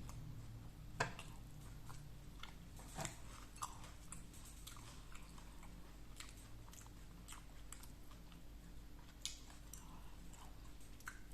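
A person chewing and biting food close to the microphone, with scattered small crunches and mouth clicks; the sharpest clicks come about a second in and about three seconds in.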